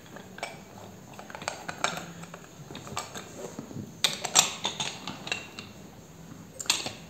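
Small clicks and metal clinks from handling a digital crane scale: a screwdriver undoing the screws of its plastic battery cover, the steel hook shifting and the cover coming off. A louder cluster of clinks comes about four seconds in.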